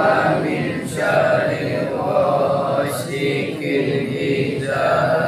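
A group of men chanting an Arabic Islamic prayer recitation together, in long drawn-out phrases with short breaks between them.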